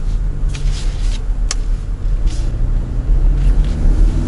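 Steady low rumble of a car's engine and tyres heard inside the cabin while driving slowly, with a single sharp click about a second and a half in.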